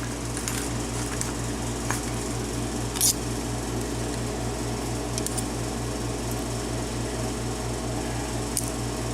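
A few small metal clicks from lock parts being handled while the cylinder is taken apart, the loudest about three seconds in, over a low steady pulsing hum of about five or six beats a second.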